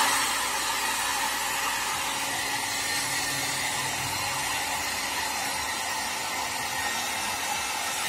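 Dr. Homes hand-held hair dryer running steadily, a constant rushing hiss of its fan blowing air.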